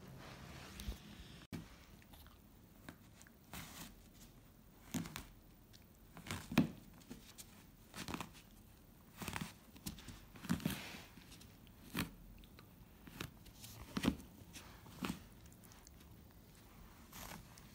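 Akita puppy pawing and mouthing a cloth towel on carpet: faint, irregular soft taps, rustles and bites scattered through.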